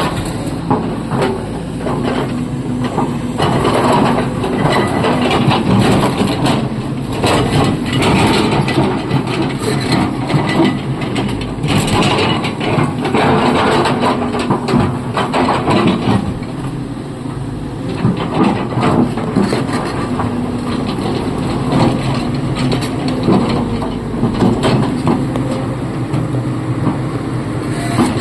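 SANY excavator's diesel engine running under load while it loads a dump truck, with irregular clanks and rattles throughout.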